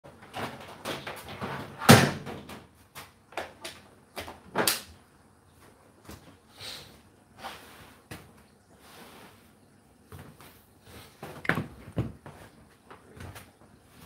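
Whirlpool WFO3P33DLXUK dishwasher partway through its wash cycle: water splashing inside the tub with irregular thuds and knocks against the door and dishes, the loudest about two seconds in.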